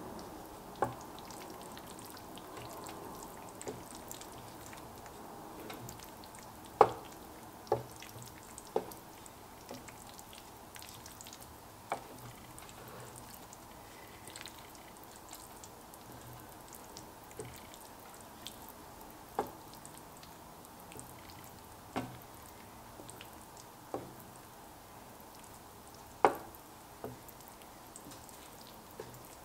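Wooden spatula stirring thick cheese sauce and pasta in an enameled cast iron pan: soft wet squelching, with a sharp tap of the spatula against the pan every few seconds, about a dozen in all.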